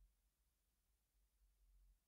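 Near silence, with only a faint low rumble that swells and fades twice.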